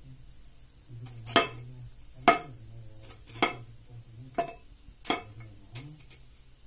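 A metal utensil clinking against a clay plate: six sharp taps, each with a brief ring, roughly a second apart.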